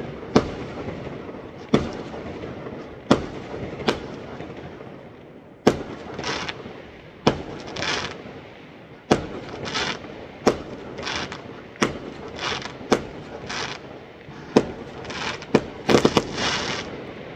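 Fireworks going off: a string of sharp bangs about one to one and a half seconds apart. From about six seconds in, each bang is followed by a short hiss. Several bangs come in quick succession near the end.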